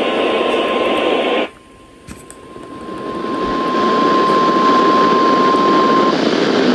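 NOAA Weather Radio warning alarm tone, a steady single pitch of about 1 kHz, heard through a radio receiver's heavy static. The static drops away about a second and a half in and swells back over the next couple of seconds, and the tone cuts off about six seconds in. The tone is the signal that an alert, here a snow squall warning, is being broadcast.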